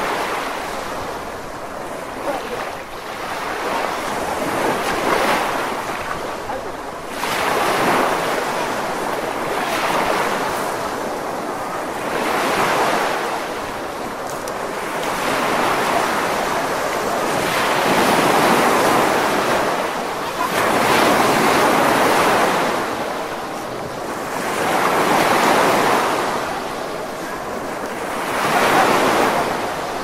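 Sea waves breaking on a sandy beach, the surf surging and washing up the shore, swelling and falling away every few seconds.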